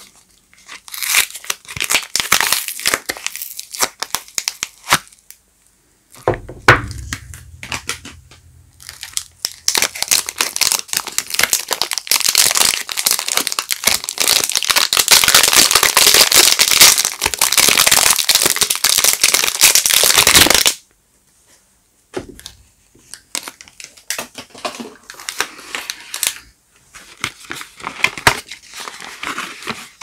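Paper and plastic soap wrappers crinkling, crumpling and tearing in irregular bursts as soap bars are unwrapped by hand. The crinkling is densest and loudest through the middle, then thins out to scattered rustles near the end.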